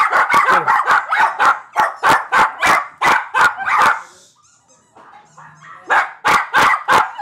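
Small terrier puppies barking rapidly, sharp yaps several a second, breaking off for about two seconds just past the middle and then starting again.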